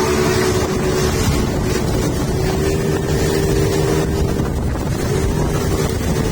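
Speedboat engine running under way in rough, windy seas, its steady hum dipping briefly twice, with wind buffeting the microphone.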